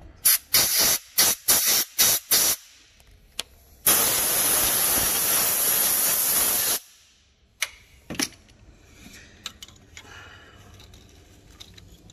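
Compressed-air blow gun blowing out the pins of a wiring-harness connector: about seven short blasts, then one steady blast of about three seconds. Two light clicks follow soon after.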